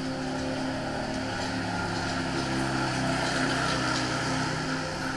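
Motor vehicle engines running, with one engine growing louder and rising in pitch from about two seconds in and dropping away near the end.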